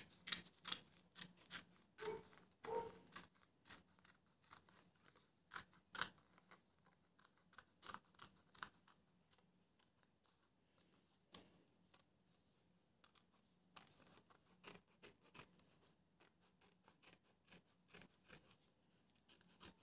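Small scissors snipping through a printed paper picture in a run of short, crisp cuts, which thin out for a few seconds midway and then resume.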